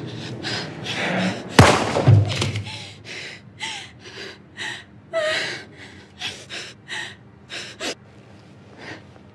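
A single loud revolver shot about one and a half seconds in, followed by a heavier thud, then a string of short, gasping, sobbing breaths with brief whimpers.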